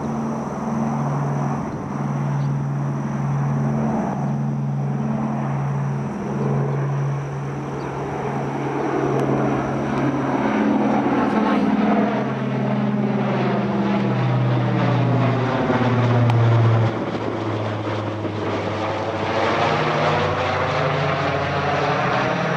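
Boeing B-29 Superfortress's four Wright R-3350 radial engines and propellers droning in a low flypast. The sound grows louder as the bomber comes overhead, and about 17 seconds in the engine note drops in pitch as it passes and moves away.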